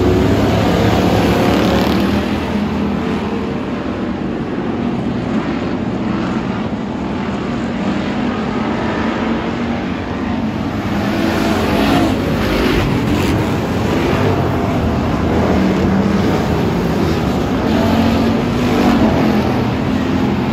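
A pack of hobby stock race cars running together around a dirt oval, their engines loud and continuous, the sound swelling and easing as the field passes, louder again from about halfway through.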